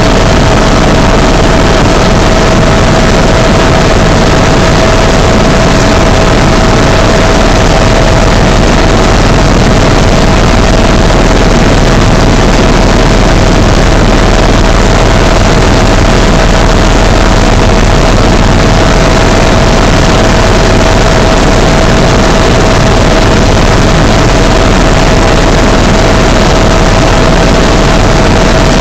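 Helicopter in level flight, heard inside the cabin: engine and rotor make a loud, steady rushing noise with one steady tone running through it, unchanging throughout.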